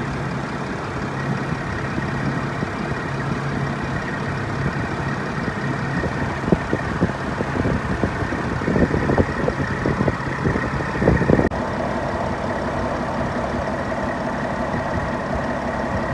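Mercedes Sprinter van engine idling steadily, heard close up in the engine bay beside the added second alternator and its belt drive, with a thin steady high tone over the hum. A few seconds of louder irregular knocking and rustling come near the middle.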